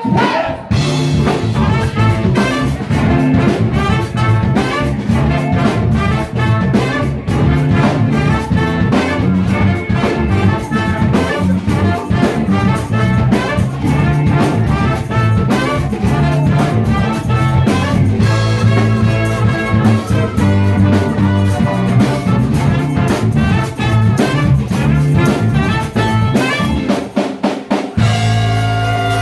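Live cover band with a horn section, trumpet and trombone playing over drum kit and bass, a dance groove with a steady beat, recorded on a cell phone in the room. The bass and drums drop out for a moment near the end, then the band comes back in.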